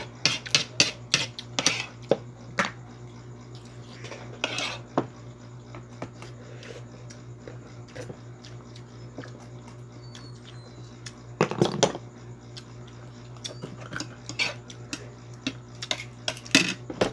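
Oyster shells, a knife and plates clicking and clacking as cooked oysters are pried open with a knife on a cutting board and eaten at the table, with a louder clatter about two-thirds of the way through. A steady low hum runs underneath.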